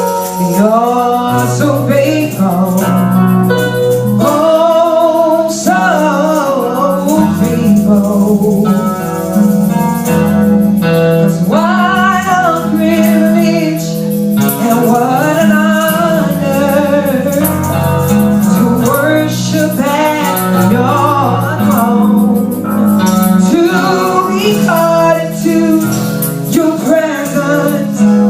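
Worship song: a singer's melodic line over sustained bass and keyboard chords.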